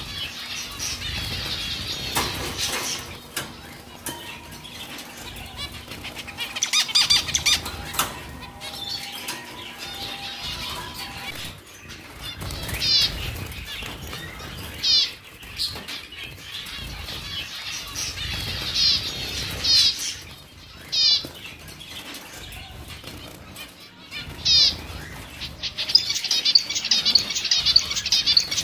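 White zebra finches flapping and fluttering, bursts of wingbeats coming and going, with quick, high chirping calls over them that grow busier near the end.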